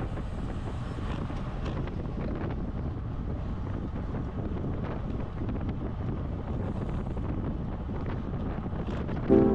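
Steady wind rushing over the microphone of a camera riding along on a road bike, heard as an even noise with faint scattered ticks.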